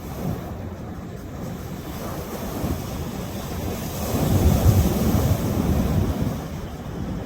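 Sea waves breaking on the shore, one wave swelling to a peak about four seconds in and washing off again, with wind buffeting the microphone.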